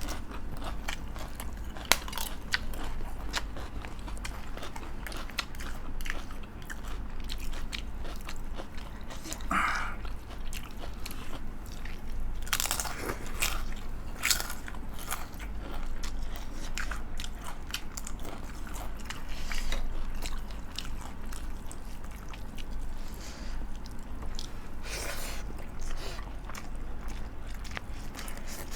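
Close-up eating: repeated crunchy bites and chewing of food, in short crackling strokes with denser bursts of crunching now and then.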